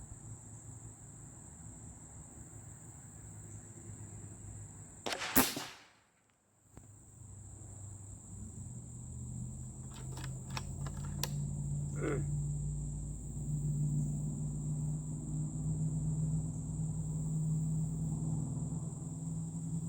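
A single shot from a Hatsan Bully .357 big-bore air rifle about five seconds in, followed some seconds later by a few light clicks. Crickets chirr steadily throughout, and a low steady hum builds from about eight seconds in.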